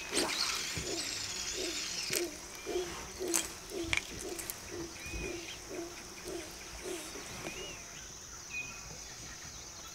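Pre-dawn jungle ambience. A low animal call repeats about every half second and fades out near the end, over scattered high bird chirps and a steady high insect whine.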